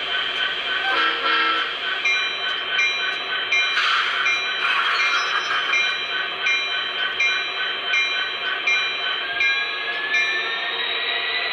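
Sound system of an MTH HO SD70M-2 model diesel locomotive playing a steady diesel engine sound with a locomotive bell ringing about once every two-thirds of a second, stopping near the end. A short horn-like toot comes about a second in and a burst of hiss about four seconds in.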